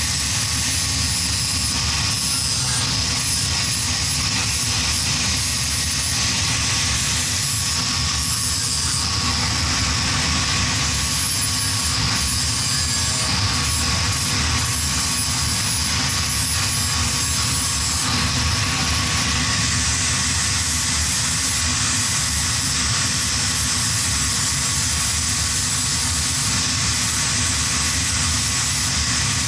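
Angle grinder running steadily with a constant motor whine, its disc grinding a metal frame tube; the grinding noise shifts now and then as the disc's contact with the metal changes.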